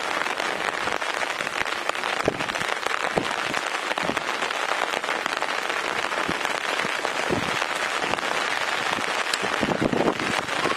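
Steady rain falling, a dense patter of drops with the odd louder drop.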